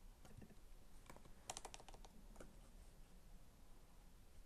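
Faint computer keyboard typing, a few soft key clicks, most of them bunched together about a second and a half in, over near silence.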